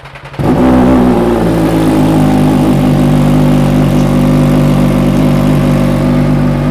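MV Agusta Dragster 800 RC's three-cylinder engine, breathing through an SC-Project titanium racing exhaust, is started: the starter cranks briefly, the engine catches about half a second in, then it idles loud and steady.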